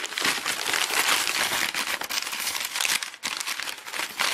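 White wrapping being crumpled and pulled open by hand, a continuous crinkling with a brief lull about three seconds in.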